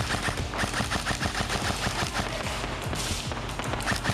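Airsoft rifles firing on full auto: rapid, evenly spaced shots many times a second, one stream running into the next.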